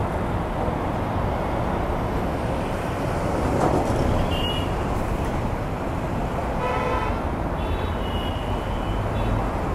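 Kawasaki Z900 ridden at an even pace, a steady rush of engine and wind noise with no revving. A short horn toot sounds about seven seconds in, with a few thin high beeps around it.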